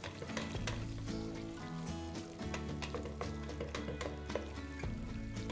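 Instrumental background music comes in about half a second in, over the faint sizzle of onions frying in a pot.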